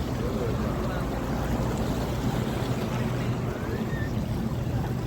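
Seaside ambience: a steady low engine hum, with wind on the microphone and the wash of the sea.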